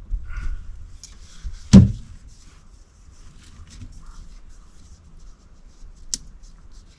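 Clicks and knocks of hand work fastening a floodlight fixture onto its mounting box: one loud knock about two seconds in, a sharp click near the end, and scattered small clicks between.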